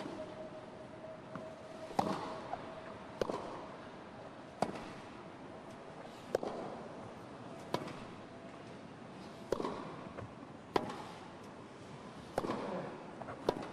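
Tennis rally: sharp pops of racket strings striking the ball and the ball bouncing on the court, back and forth about every second or two.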